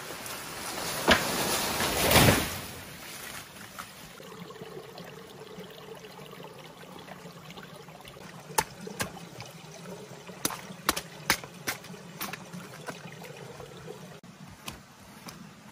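A banana plant toppling: a rush of leaves that swells to a crash about two seconds in. Then water trickling and splashing among the fallen leaves, with scattered drips and taps.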